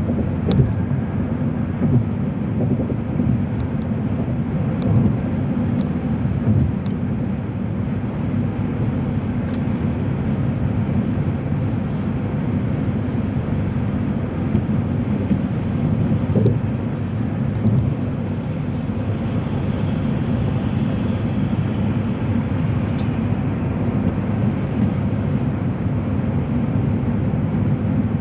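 Steady drone of a car being driven, engine and tyre noise on a wet road heard from inside the cabin.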